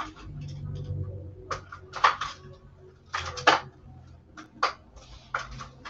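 Small hard objects being handled, in a series of irregular sharp clicks and clatters, the loudest about two and three and a half seconds in, as someone rummages for her water brushes.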